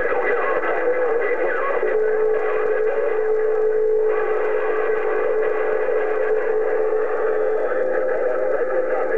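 CB radio receiving a garbled, warbling transmission through its speaker, with no clear words. A steady tone sounds through it from about two seconds in until near the end.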